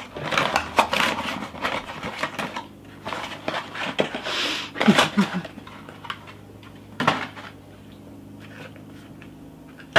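Small cardboard gift box being opened and its contents handled: a run of rustles, light clicks and taps over the first few seconds, a breathy exhale about four seconds in, and a couple more ticks before it goes quiet.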